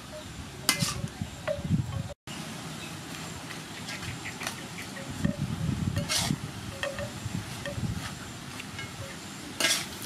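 Metal spatula stirring noodles, beef and greens in a metal wok, scraping and clinking against the pan, with the strongest scrapes about a second in, around six seconds and near the end.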